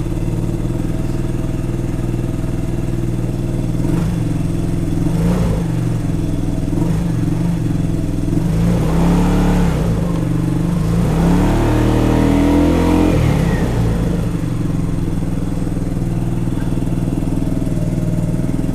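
Royal Alloy GP300 scooter's single-cylinder engine running through a newly fitted Tasso Performance stainless road exhaust. It idles steadily, and in the middle it is revved a few times, the revs rising and falling, then settles back to idle. Not too loud.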